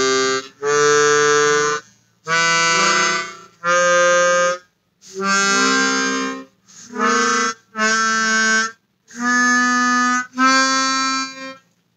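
Easttop T16-64 brass-comb chromatic harmonica played one note at a time through its first octave: about nine clear, separate held notes, each roughly a second long, with short breaks between them.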